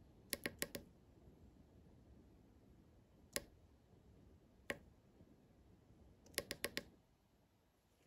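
Small tactile push button on a breadboard being pressed, each press and release giving a sharp little click. A quick run of four clicks comes near the start, then a single press about three seconds in is held for over a second before its release click, and another quick run of clicks comes near the end: a double click, a long press, then another rapid click sequence.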